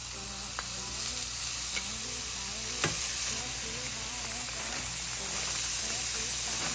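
Sliced mushrooms and broccoli sizzling and frying in a hot nonstick frying pan, a steady hiss that grows a little louder about five seconds in. A sharp knock comes about three seconds in, with lighter clicks before it.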